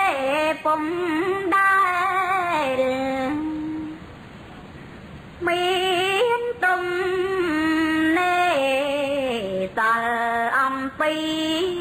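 Khmer smot, the Buddhist chanted recitation: a woman's solo voice sings long, drawn-out lines with wavering, ornamented held notes. It is unaccompanied. The voice stops for about two seconds a few seconds in and then takes up the next phrase.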